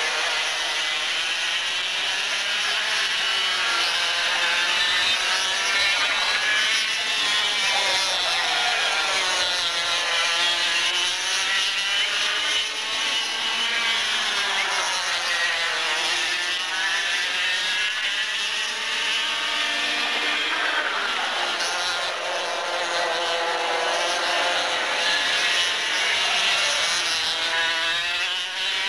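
Several two-stroke Parilla kart engines racing at high revs, their notes overlapping. The pitch falls as the karts brake for the corners and climbs again as they accelerate out, over and over.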